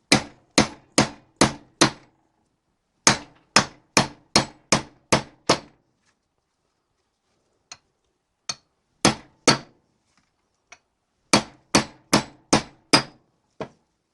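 Hammer blows knocking old wheel studs out of a classic Austin Mini rear hub. The blows come in quick runs of five or six, about two a second, with short pauses between the runs and a few single blows.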